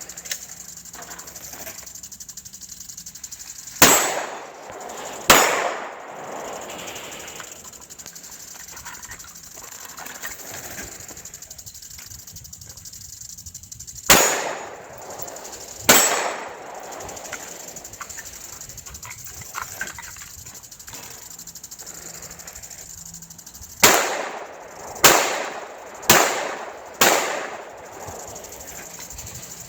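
Glock 17 9mm pistol firing eight shots in three groups: two about four seconds in, two more around fourteen to sixteen seconds, and a quicker string of four near the end, each shot trailing off in a short echo. A steady high-pitched insect buzz runs underneath.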